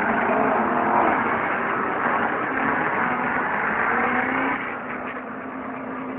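NASCAR stock cars' V8 engines running past as a pack at caution speed, a dense engine drone that falls away about four and a half seconds in as the cars go by.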